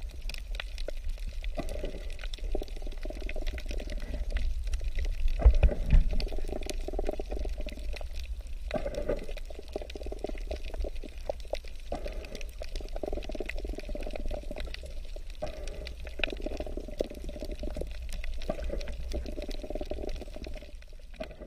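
Underwater ambience as picked up by a camera in the water: water sloshing and gurgling in swells every few seconds over a steady low rumble, with scattered crackling clicks throughout.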